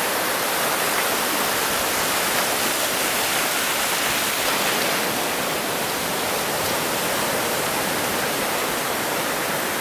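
Surf washing over shallow water at the shoreline: a steady, even rush of foaming water.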